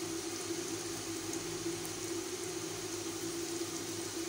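Oil sizzling around raw beef kofta balls added to a frying pan for shallow frying, over a steady low hum.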